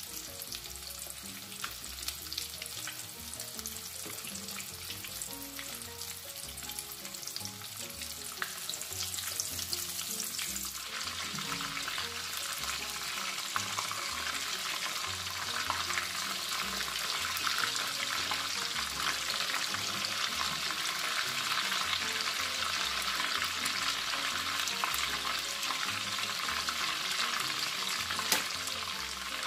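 Almond-flour-coated beef meatballs sizzling in hot oil in a frying pan. The sizzle grows louder about eleven seconds in, as more meatballs go into the oil.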